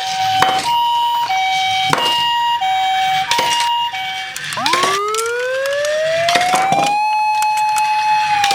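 Electronic ambulance siren, first alternating between two tones (hi-lo) about twice a second. About four and a half seconds in it switches to a wail that rises, holds steady and begins to fall near the end. A few sharp clicks and knocks come in between.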